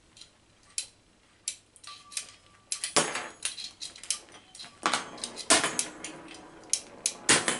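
Single-action revolver being unloaded by hand: a series of separate sharp metallic clicks and clacks as the cylinder is turned and the snap caps are pushed out one by one, a few of them louder with a short ring.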